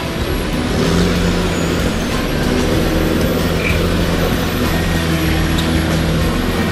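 Engine of a lifted Toyota four-wheel-drive wagon running steadily under load as it climbs a rocky dirt track and passes close by.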